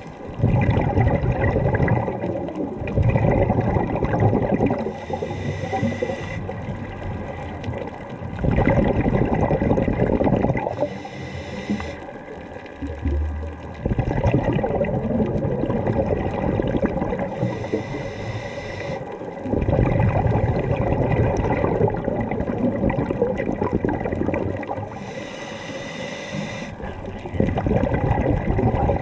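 Scuba diver breathing through a regulator underwater: loud bursts of exhaled bubbles every five seconds or so, with quieter stretches of inhaling between.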